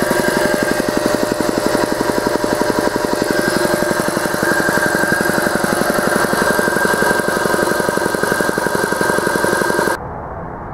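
A 1970s belt-driven two-stage piston air compressor running, its electric motor turning the cast-iron pump in a fast, even chugging pulse as it builds air, with a higher whine joining about a third of the way in. It stops abruptly near the end, leaving a low steady background.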